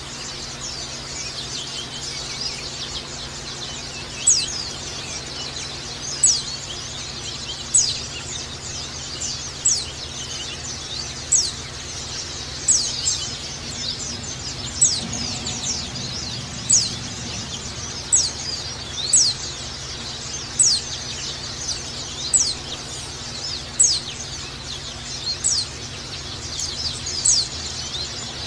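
White-eyes (pleci) calling: sharp, high notes that slide downward, repeated roughly once a second, over a steady background of fainter, dense high twittering.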